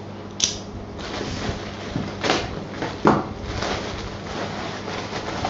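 Thin black plastic bag rustling and crinkling as it is picked up and handled, with a few light knocks.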